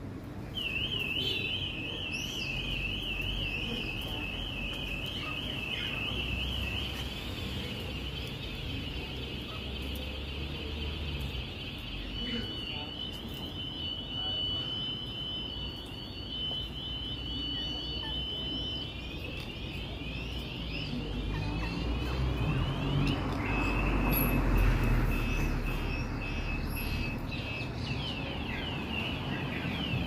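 Car alarm sounding and cycling through its siren patterns: a fast warble, then slower sweeps, a long steady tone, a run of rapid chirps, and a steady tone again. A low rumble runs underneath.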